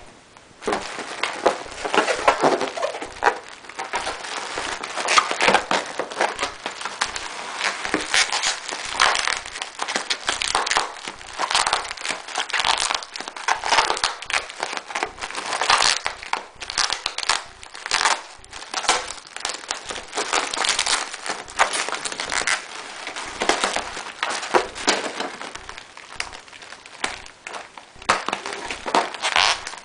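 Shipping-box packing material being pulled out and handled, crinkling and crackling in a dense, irregular run starting about half a second in.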